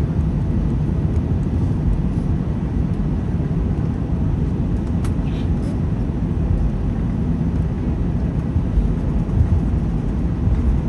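Steady low rumble inside the cabin of an Airbus A319 taxiing after landing, its CFM56 engines at idle. A single sharp click comes about five seconds in.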